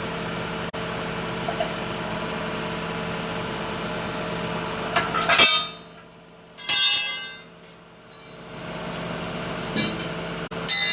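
Engine idling steadily with an even hum. About halfway through come a few short, loud sharp sounds; the hum drops away for a couple of seconds, then comes back with more sharp sounds near the end.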